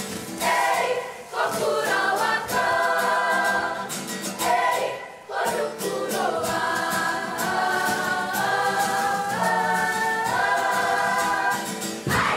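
Kapa haka group singing a Māori poi song together, with the light, rapid taps of swung poi striking hands and bodies to the beat. The singing stops near the end.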